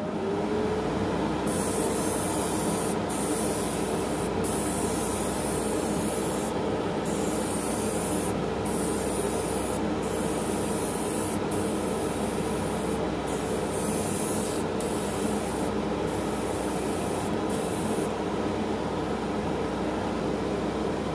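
Airbrush spraying heavily thinned paint in about a dozen short hissing bursts with brief pauses, stopping near the end. Under it runs the steady hum of a spray booth's extraction fan, which is still spinning up at the start.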